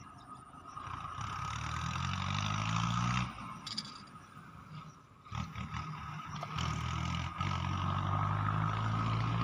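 A low engine hum. It swells up over the first three seconds, drops away, then comes back and holds from about six seconds in. A steady thin high whine runs under it.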